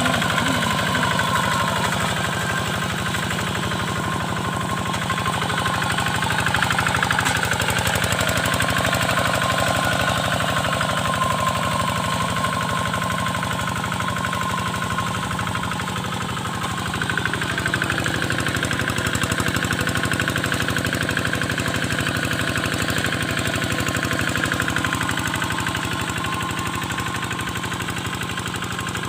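Hand tractor's Kubota single-cylinder diesel engine running steadily with a rapid, even firing beat while it pulls a moldboard plow through wet paddy soil.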